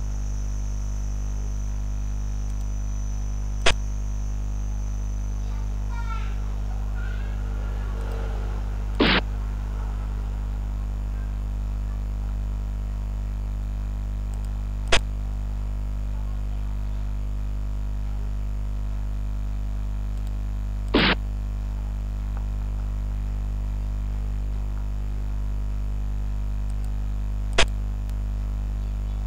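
Steady low electrical hum with five short clicks from a digital xiangqi board's move sound, one about every six seconds. The second and fourth clicks are slightly longer.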